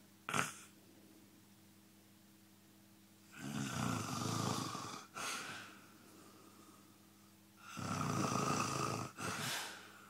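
A man snoring in his sleep: two long rough snores about four seconds apart, each followed by a shorter breath. A brief sharp sound comes about a third of a second in.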